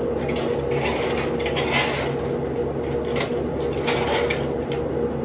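Small hard objects clattering and knocking as they are handled, a string of short clicks and clinks over a steady low hum.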